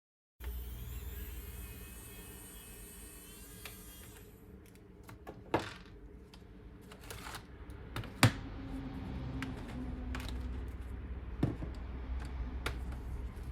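Small cordless electric screwdriver motor whining for about four seconds as it drives out laptop case screws, then a series of sharp clicks and taps of screws and plastic parts being handled, the loudest about eight seconds in.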